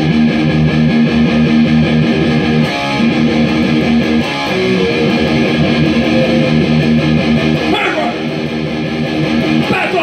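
Electric guitar strumming chords, the intro of a punk-rock song, with a short break about three seconds in.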